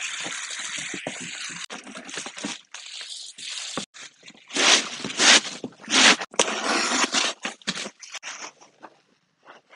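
A roll of black roofing underlayment being unrolled and handled, the plastic sheet rustling and crinkling, with louder bursts in the middle.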